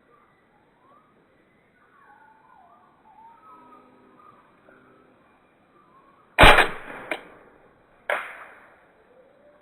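Tokyo Marui Glock 17 gas blowback airsoft pistol firing two sharp shots about two seconds apart in the second half, with a smaller click between them.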